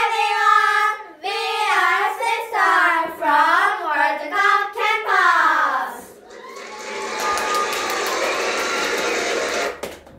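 A group of young girls singing a short song together in unison, with hand motions. About six seconds in the singing gives way to a steady hiss lasting about four seconds, which cuts off sharply near the end.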